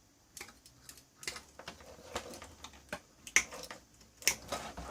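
Irregular sharp clicks and taps, about eight of them, from wiring and plug connectors being handled and pulled loose inside an electronic test set's chassis.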